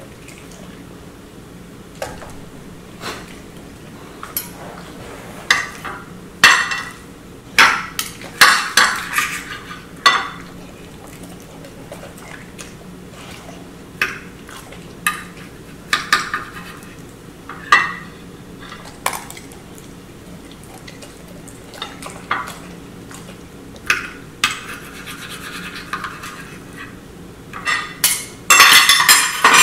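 A kitchen knife slicing a raw steak on a ceramic plate: irregular sharp clinks and scrapes of the blade against the plate, the loudest cluster near the end.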